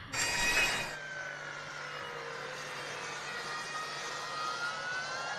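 An engine-like vehicle drone. It starts with a louder hissing rush in the first second, then settles into a steady drone with faint tones that dip and rise again slowly.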